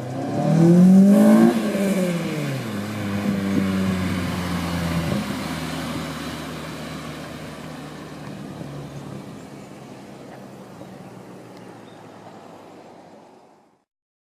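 2006 Acura RSX Type-S's 2.0-litre four-cylinder engine revving hard as the car accelerates by, its pitch climbing over the first second and then dropping as it passes. The engine note then fades away steadily and cuts off near the end.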